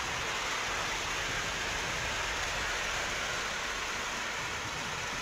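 Typhoon wind driving heavy rain, a steady loud rush of noise that does not let up.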